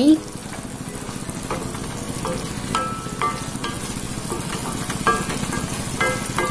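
A spatula stirring a thick curry in a pan, scraping and knocking against the pan about twice a second with a brief ringing on each stroke, over the steady sizzle of the simmering masala.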